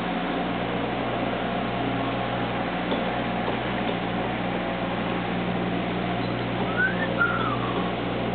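Boat engine running steadily with a constant low hum, under a noise of wind and water. About seven seconds in, two short whistled notes sweep up and down.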